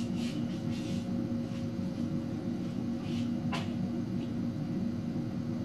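Steady low electrical hum and room noise, with a brief faint tick about three and a half seconds in.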